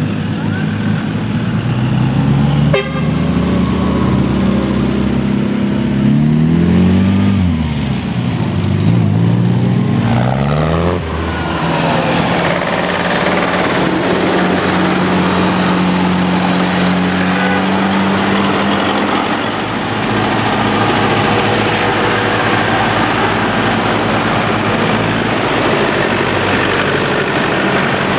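Engines of old tractors driving past in a column. Their pitch swings up and down as they go by about six to eleven seconds in, then one engine runs steadily.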